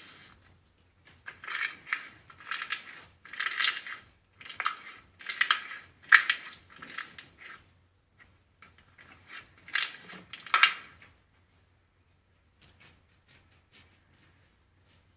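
Slime being squished and pressed by hand, giving bursts of crackly clicking and popping from about a second in until about eleven seconds in, then only a few faint clicks.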